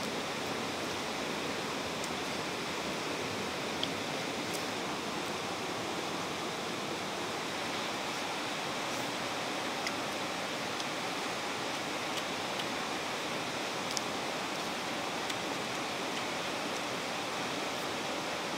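Steady, even rushing hiss of outdoor ambience, with a few faint short clicks scattered through it.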